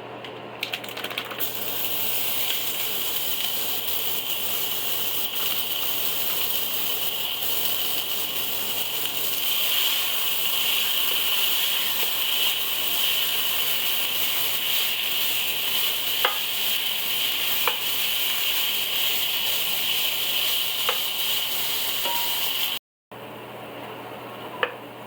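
Ground beef sizzling as it fries in a hot pan, a steady hiss with a few light clicks of stirring. The sizzle starts about half a second in, grows stronger partway through, drops out suddenly near the end and comes back quieter.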